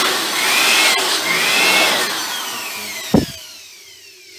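Electric dust blower running in short surges, its whine rising and falling, then switched off about two and a half seconds in, the whine falling as the motor spins down. One dull knock comes near the end.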